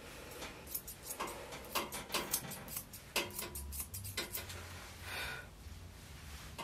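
Grooming shears snipping a toy poodle puppy's face coat: a run of quick, irregular snips over the first four seconds or so, then a short breathy noise about five seconds in.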